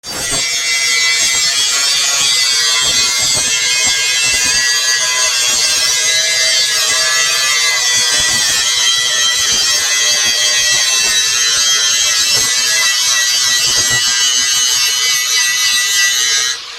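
Stick (arc) welding on rusted steel pipe with a 3/32-inch rod at 75 amps from an Everlast PowerArc 140ST: a steady, loud hissing arc that starts abruptly and cuts off suddenly near the end as the arc is broken.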